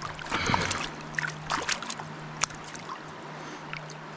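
Shallow river water running over rocks, with splashes and sharp drips during the first two and a half seconds as a freshly caught trout is handled in the water at the bank, then just the steady flow of the water.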